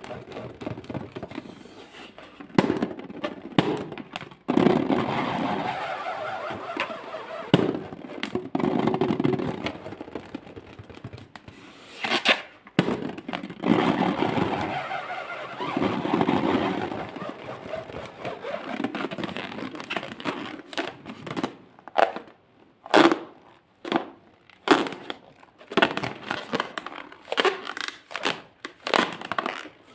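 Slime being worked by hand, with sticky crackling and squishing, then about two-thirds of the way in a run of short, sharp clicks and crunches.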